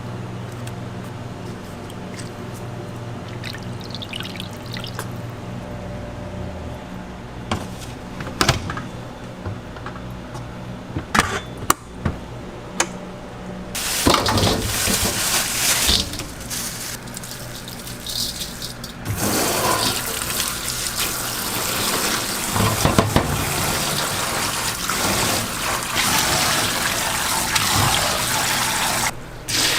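Scattered clinks of kitchen utensils over a low steady hum, then from about halfway water running steadily into a sink or pan.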